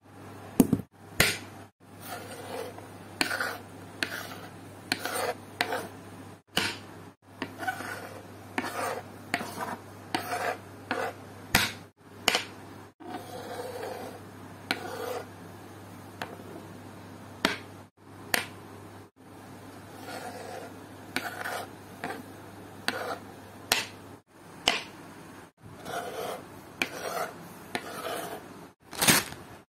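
Knife chopping onion on a wooden cutting board: irregular knocks of the blade on the board, with a low steady hum behind them that stops about three-quarters of the way through.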